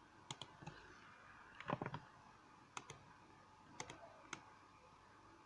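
Faint clicks of a computer mouse and keyboard: scattered single clicks and quick pairs, with a short, louder cluster of taps about two seconds in.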